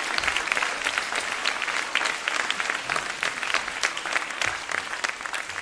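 Theatre audience applauding, a dense steady clapping that eases off at the very end.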